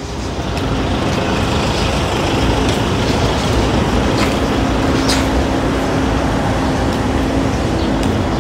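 Road traffic with a bus engine running close by. The noise swells over the first second, then holds steady with a low hum.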